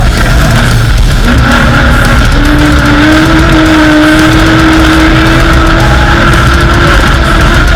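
Off-road race vehicle's engine running hard at high revs; its pitch steps up early on and then climbs slowly.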